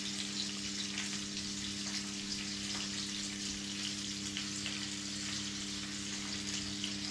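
Hot oil sizzling in a frying pan, an even crackle with small pops, over a steady low hum.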